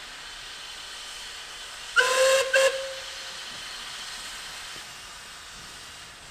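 Steam locomotive whistle giving two blasts about two seconds in, a longer one and then a short one.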